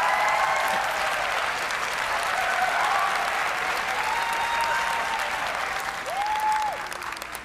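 Audience applauding, with scattered cheers and one held high call about six seconds in. The applause then dies down near the end.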